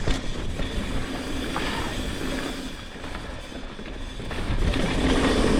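Mountain bike rolling down a dirt trail, heard from a rider-worn action camera: a steady rumble of tyres on dirt, with rattling of the bike and wind on the microphone. It gets louder about four and a half seconds in as the ride speeds up or roughens.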